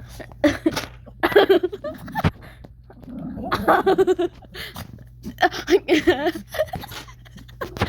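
Shih Tzu play-growling in several short, rough bursts.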